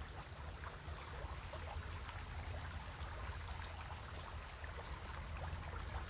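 Faint steady rush of a nearby stream, with a low rumble underneath and a few faint ticks.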